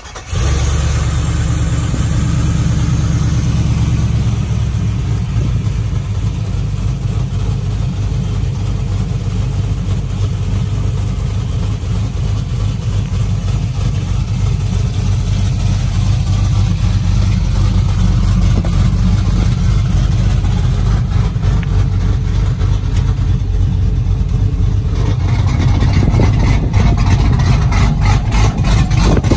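A cammed Chevrolet Silverado V8 with a Brian Tooley stage 3 camshaft and no catalytic converters, idling steadily. About 25 seconds in, the exhaust cutouts are opened and the exhaust grows louder and fuller.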